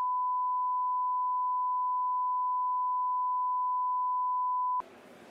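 A steady, pure 1 kHz test tone, one unwavering pitch, that cuts off suddenly near the end, leaving faint background ambience.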